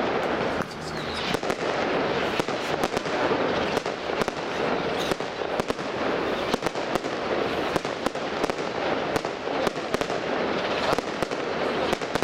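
Fireworks display: aerial shells bursting in a rapid, irregular series of sharp bangs, with a steady noise between them.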